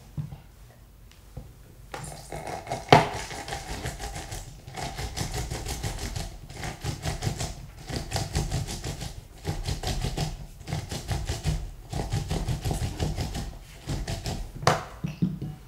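Lemon halves twisted back and forth on a ridged plastic hand citrus juicer: a rapid, scratchy ticking of rind grinding against the cone, in runs of a second or two with short breaks. A sharp knock comes about three seconds in and another near the end.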